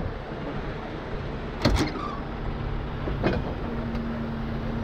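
Heavy rotator wrecker's diesel engine running, with two sharp clunks about a second and a half apart as the truck's winch control-panel compartment is opened. Near the end a steady whine joins in.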